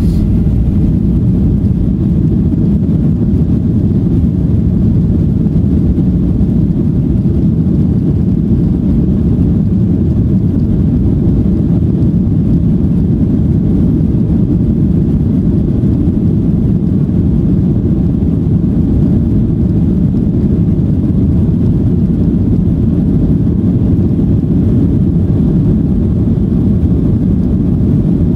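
Boeing 737-900's CFM56 jet engines and rolling landing gear heard from inside the cabin as the airliner moves along the ground: a loud, steady low rumble.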